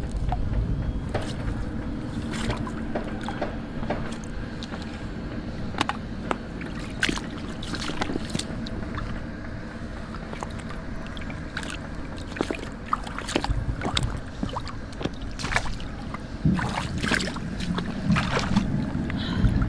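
Rocks being lifted and turned over in shallow seawater: many short, sharp knocks of stone on stone and splashes of water, over a steady low rumble.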